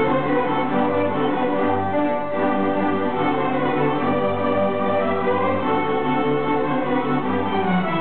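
Youth string orchestra playing: violins carrying the tune over cellos and a repeated low bass line.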